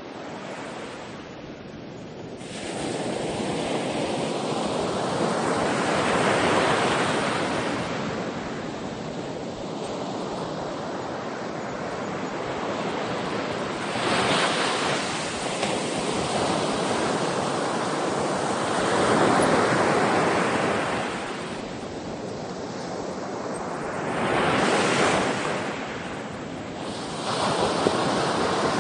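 Ocean waves breaking and washing on the shore, a steady rush of surf that swells and ebbs with each wave every few seconds.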